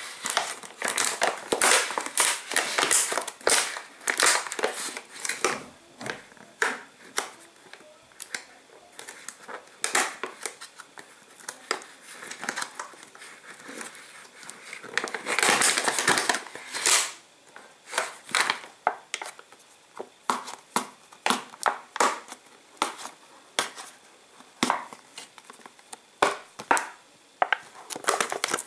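Clear plastic food tray and its film lid crinkling and crackling in irregular bursts as hands grip the package and pick at the corner of the peel-off film to open it.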